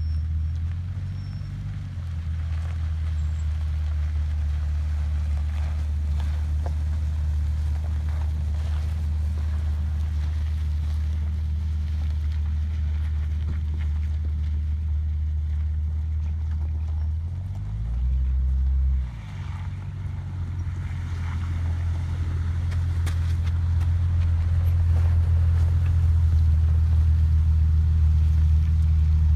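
Off-road 4x4 vehicle engine running at low revs with a deep, steady note; about two-thirds of the way through its pitch dips briefly and comes back, and it grows louder toward the end.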